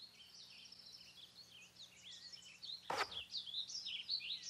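Songbirds chirping and twittering in a quiet outdoor ambience, the calls becoming busier in the second half. About three seconds in, a short sudden noise stands out above the birdsong.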